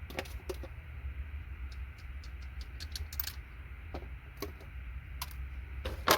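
Scattered light clicks and taps of circuit-board scrap and hand tools being handled, with a sharper knock near the end, over a low steady hum.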